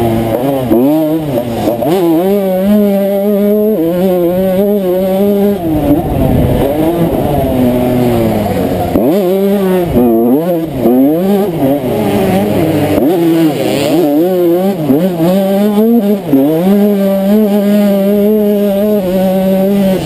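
1992 Honda CR125's single-cylinder two-stroke engine racing on a motocross track. It revs up and falls off again and again as the throttle opens and shuts and the gears change, with deeper drops to low revs a few times.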